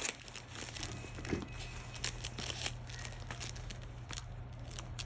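Puppies chewing and rummaging among thin plastic ball-pit balls: irregular crinkling and clicking of plastic, with a steady low hum underneath.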